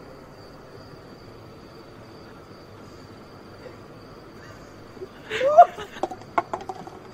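A person laughs briefly about five seconds in: a rising hoot-like note, then several quick short laughing bursts. Before that there is only a faint steady hiss with a thin high steady tone.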